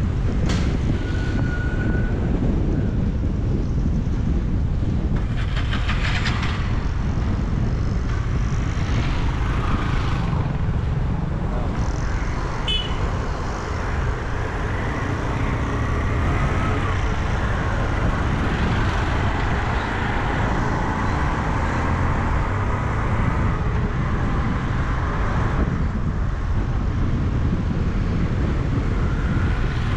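Road traffic from driving along a city street: a steady rumble of engines and tyres, with short horn toots about a second in and again about halfway through.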